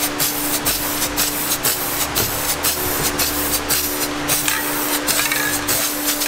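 Aerosol spray paint can hissing steadily as paint is sprayed onto a masked metal part.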